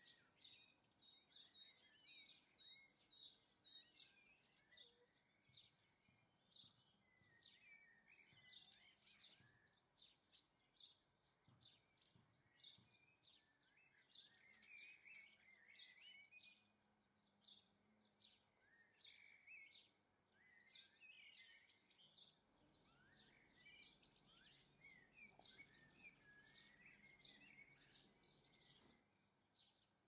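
Faint chirping and twittering of small garden birds: quick high chirps repeat about once or twice a second among longer warbling phrases.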